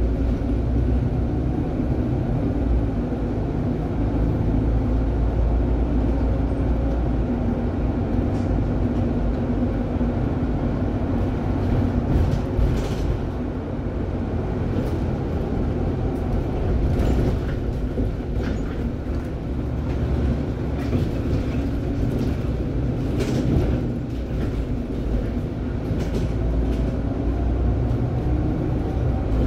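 City bus under way, heard from inside near the front: a steady low engine and road rumble whose pitch shifts as it accelerates and slows, with a few short clicks and rattles.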